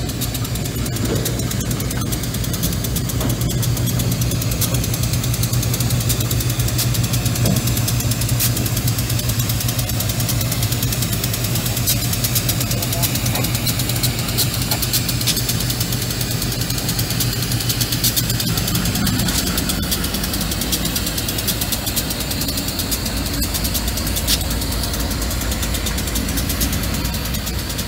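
General Electric B36-7 diesel locomotive running at low speed as it moves flatcars over a grade crossing. Its steady low engine note changes about two-thirds of the way through.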